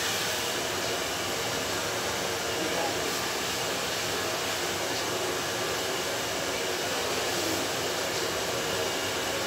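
A steady hiss of rushing air from a running blower, even in level throughout.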